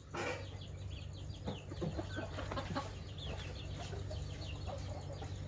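Chickens clucking with a dense chorus of short, high, falling peeps from chicks throughout, over a steady low hum.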